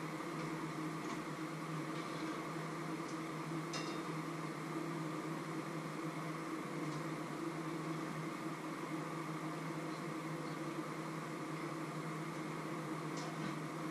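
A steady mechanical hum over a soft hiss, like a small appliance motor or fan running, with a few faint light clicks as food is turned in a frying pan.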